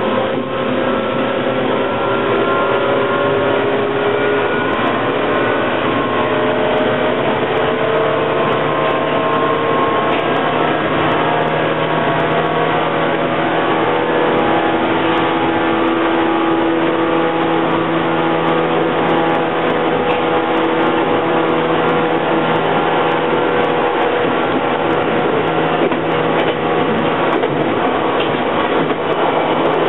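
Running sound inside the motor car of a 415 series 800-subseries electric multiple unit: the MT54 traction motors and gearing whine, rising slowly in pitch as the train gathers speed, over the steady rumble of wheels on rail.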